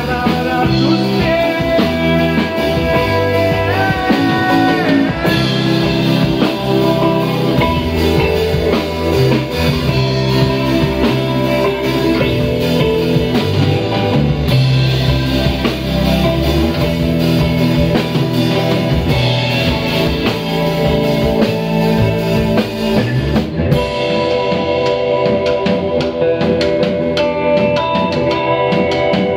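Live rock band playing an instrumental stretch: a Telecaster-style electric guitar, an electric bass and a Sonor drum kit together in a half-rock, half-chacarera groove, with a bent guitar note about four seconds in.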